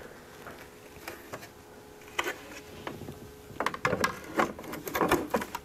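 BMW i8 engine cover with a metal frame and laminated glass window being set down and seated in the engine bay: a scatter of clicks and knocks, mostly in the second half.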